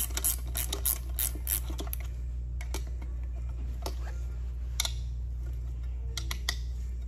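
Hand ratchet clicking in quick strokes, about four to five clicks a second, as a turbo coolant line fitting is tightened. After about two seconds the clicking thins to a few scattered clicks and taps of the tool on metal. A steady low hum runs underneath.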